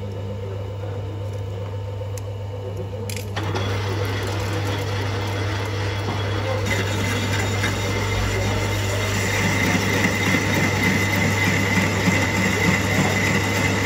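Lathe boring the inside of a cast harrow hub. The lathe's hum runs steadily, the sound grows louder about three seconds in as the work gets going, and a steady cutting hiss of the tool in the bore builds from about halfway on.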